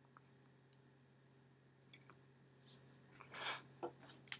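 Near silence from a man smoking a joint, broken about three and a half seconds in by one short, breathy puff of breath, with a few faint clicks around it.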